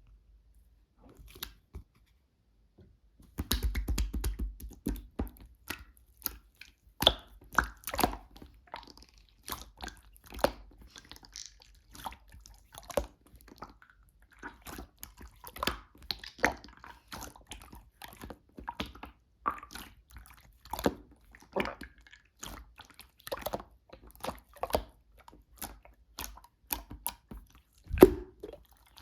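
Slime being squeezed, stretched and poked by hand, giving off irregular sticky clicks and pops.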